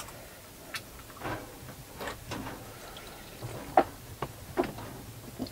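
Irregular light clicks and knocks, about eight of them over a faint background hiss, the loudest nearly four seconds in.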